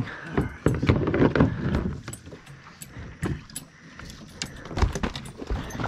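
Knocking and rattling of gear inside a small boat as two people shift about and settle in: a busy run of sharp knocks in the first two seconds, then scattered clicks and bumps.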